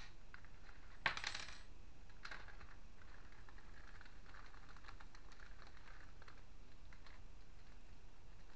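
Clear plastic parts bag crinkling as it is handled, with one sharp crackle about a second in and softer crinkles after.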